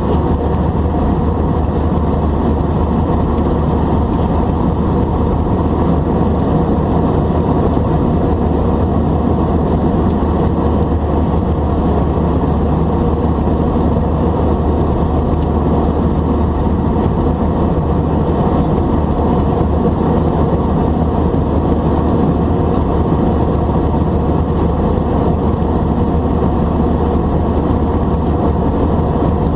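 Steady cabin noise of an Airbus A320 in the climb: its CFM56 engines at climb thrust together with airflow over the fuselage, making a constant low drone.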